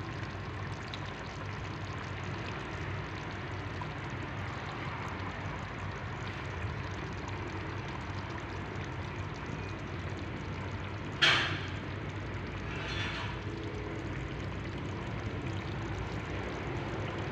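Pot of meat and tomato stew simmering, a steady bubbling hiss. A sudden sharp sound about eleven seconds in, and a fainter one about two seconds later.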